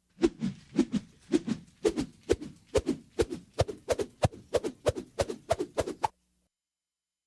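Lasso rope being twirled, whooshing round about twice a second, each pass carrying a sharp click; the twirling stops about six seconds in.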